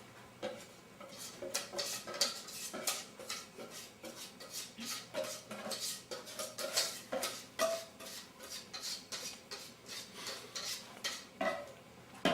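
A utensil clinking and scraping against a 9x9 baking pan in quick, irregular taps, as dry cake mix is spooned into the pan.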